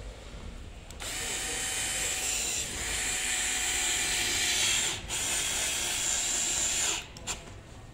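Electric screwdriver running as it drives in the two screws holding the scooter's cover plate, starting about a second in and stopping near the end, with a brief break partway through.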